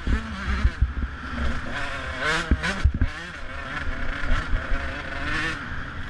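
Off-road motorcycle engine revving up and down under throttle and gear changes, with wind rush on the microphone and several sharp knocks as the bike goes over the bumpy dirt track.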